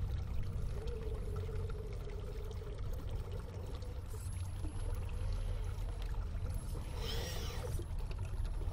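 Water pouring and splashing steadily at a pond. About seven seconds in, a brief whine of rising and falling pitch comes through, fitting the small electric motor of an SCX24 micro crawler, with the audio slowed and lowered in pitch.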